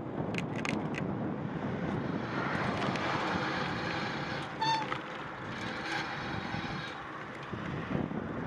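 Steady road noise from street traffic heard from a moving bicycle. A few sharp clicks come near the start and a brief high squeak a little under five seconds in.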